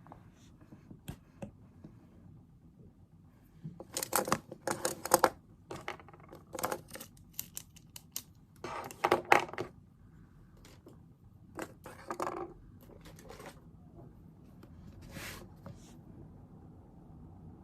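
Small objects clattering and clicking on a desk in several short bursts of handling, with quiet gaps between them.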